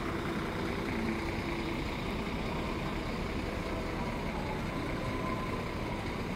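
Steady vehicle engine noise, with a faint hum running through it.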